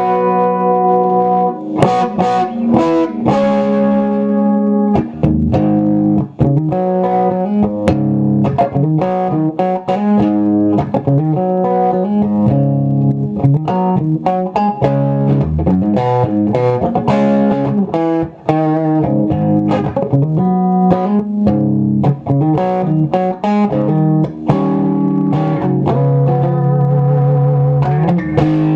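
1957 Gibson Les Paul Junior electric guitar with its single P-90 pickup, played through an amplifier: picked chords and single-note riffs with a gritty, slightly overdriven tone.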